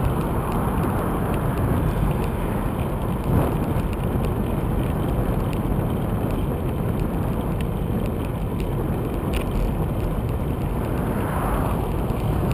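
Steady rush of wind over a bicycle-mounted camera's microphone, mixed with tyre and road noise from riding along a cycle lane, with a single knock about three seconds in.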